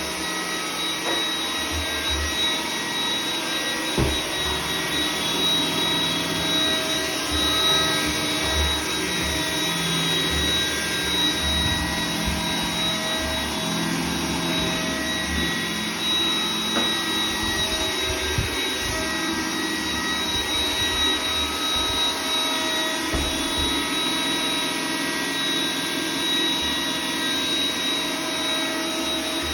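iRobot Roomba 980 robot vacuum running steadily, its motor giving a constant high whine over a rushing hiss, with uneven low rumbling and a sharp knock about four seconds in.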